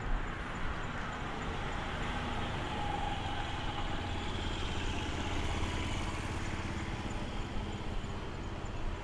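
Urban street traffic: a motor vehicle's engine rumbling close by, growing louder around the middle and then easing off, over the general hum of the city.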